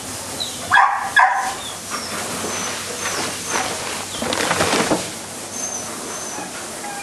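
A dog barks twice in quick succession about a second in. Faint short high chirps and a rustling noise follow, rising in the middle and then fading.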